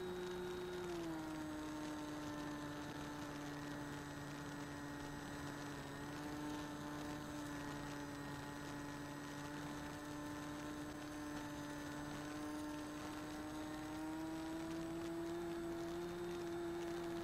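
Bixler 2 model plane's electric pusher motor and propeller running with a steady whine. The pitch drops about a second in and rises again near the end as the throttle changes.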